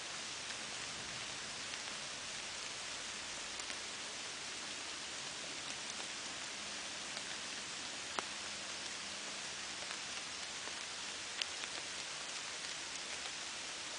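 Steady rain falling, an even hiss with scattered single drops ticking close by, two of them louder, about eight and eleven seconds in.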